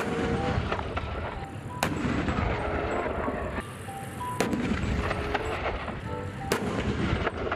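Battery-powered toy tank playing its electronic sound effects: a short synthetic tune over a rumbling engine-like noise, with three sharp gunfire-like bangs.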